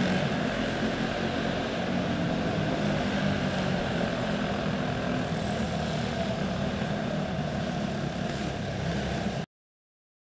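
Quarter midget race cars' single-cylinder four-stroke clone engines running on the track, a steady engine drone. It cuts off suddenly near the end.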